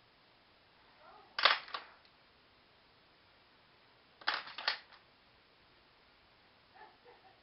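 Two short clusters of sharp plastic clicks and taps, about three seconds apart, the first a single loud click with a couple of smaller ones after it and the second three or four quick clicks, from makeup palettes and brushes being handled.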